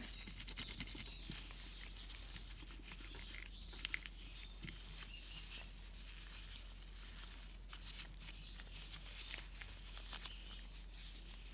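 Rubber-gloved fingers kneading a small lump of polymer clay: faint sticky rubbing and crackling, with scattered small clicks and a couple of slightly louder ticks about four seconds in.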